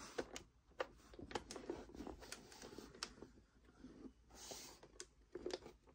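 Light clicks and knocks of a Tokyo Marui AA-12 airsoft gun's plastic body being handled, with a short rubbing sound about four and a half seconds in.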